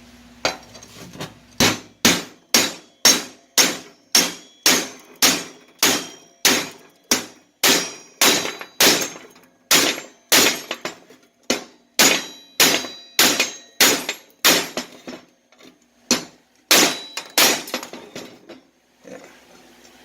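Hammer striking steel, a steady run of sharp ringing blows at about two per second, with a brief pause about three-quarters of the way through.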